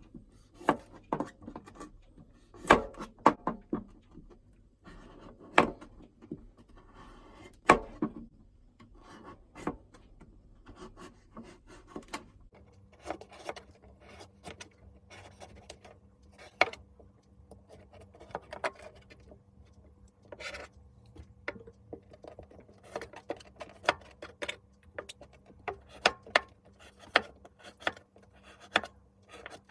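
Kitchen food-preparation sounds: irregular knocks and taps of utensils and ingredients, with bouts of rubbing and scraping in between.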